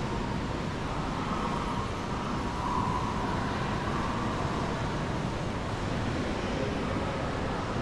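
Steady rumble of city traffic, with a faint held whine in the middle of the range.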